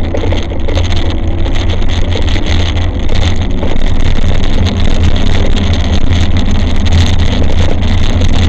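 Riding noise from an e-bike on block paving, picked up by a bike-mounted camera: a loud, steady low rumble with many small rattling clicks.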